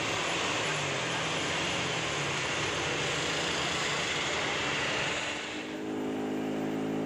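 Heavy diesel bus engine working on a steep climb: a loud rushing engine noise, then from about five and a half seconds in a steady low drone.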